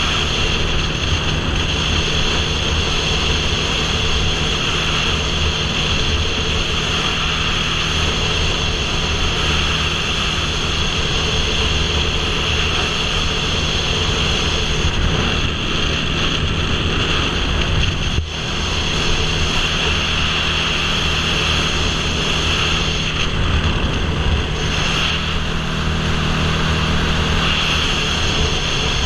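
Motorcycle cruising at steady highway speed: a steady engine hum under loud wind rushing over the helmet-mounted microphone.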